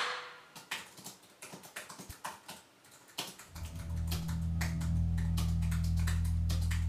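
Typing on a computer keyboard: a run of light, irregular key clicks. About halfway through, a low steady drone comes in underneath and becomes the loudest sound.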